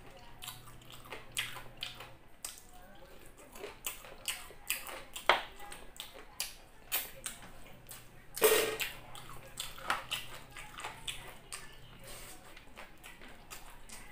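Close-up mouth sounds of a person eating chicken and rice by hand: wet chewing and lip-smacking in an irregular string of short clicks and squelches, with one louder short burst about eight and a half seconds in.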